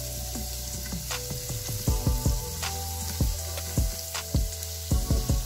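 Chopped onion sizzling in oil in a Philips multicooker's nonstick inner pot on the sauté setting, stirred with a silicone spatula as it fries to almost golden brown.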